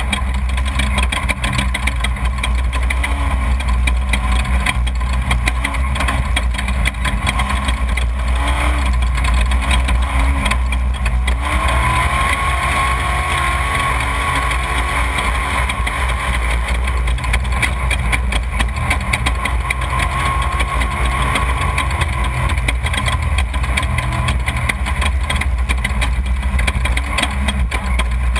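Off-road desert race vehicle's engine running with a steady low rumble. About eleven seconds in, a higher engine note comes in, rises in pitch and holds.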